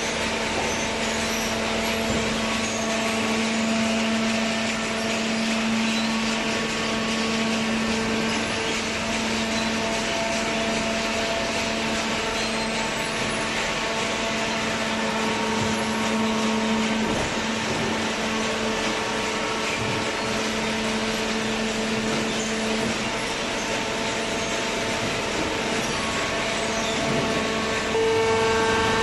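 Hydraulic baling press running: a steady machine hum from its electric motor and hydraulic pump, with a shift in tone and a rise in loudness near the end.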